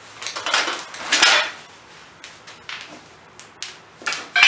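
Cardboard and plastic packing rustling as parts of a steel lift jack are handled in their shipping box. Light clicks follow, and near the end there is a sharp metallic clank with a short ring.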